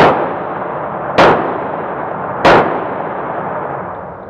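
Three gunshots about a second and a quarter apart, each ringing on in the echo of an indoor shooting range.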